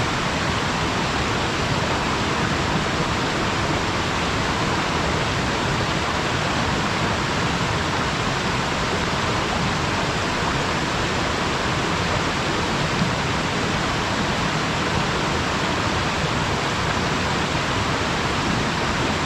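Waterfall: a steady rush of falling water, an even hiss strongest in the mid and upper range.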